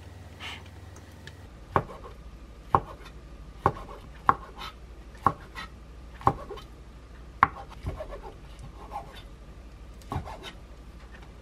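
Chef's knife slicing a rolled thin egg omelette into strips on a wooden cutting board: about ten sharp knocks of the blade on the board, roughly one a second, starting just under two seconds in.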